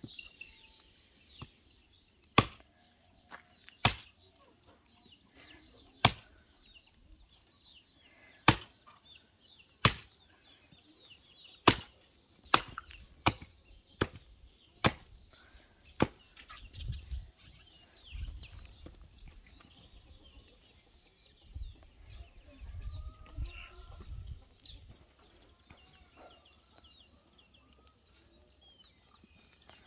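Hand axe chopping through a goat head on a wooden block: about a dozen sharp, separate blows at irregular intervals that stop about halfway through.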